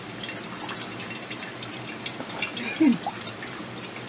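Strawberry extract dripping and trickling from a cheesecloth bundle into a glass measuring cup, many small drips and splashes. A brief falling tone sounds about three seconds in.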